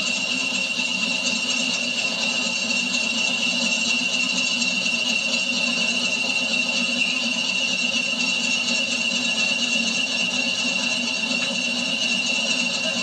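British Rail Class 40 diesel locomotive idling, its English Electric engine giving a low steady beat under the high, unbroken turbocharger whistle that earned the class its nickname "Whistler".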